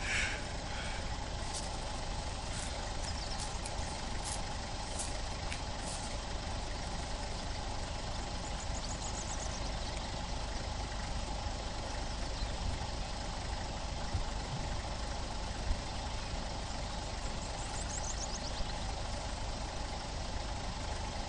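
Safari vehicle's engine idling steadily.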